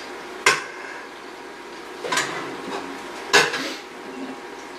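Spoon and crockery clatter as rice is scooped from an electric rice cooker into a ceramic bowl and the cooker's lid is shut: three sharp knocks, the loudest about three and a half seconds in.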